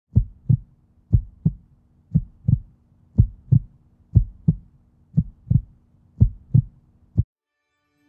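Heartbeat sound effect: a slow lub-dub, about one double beat a second, repeated seven times and ending on a single beat, over a faint steady hum.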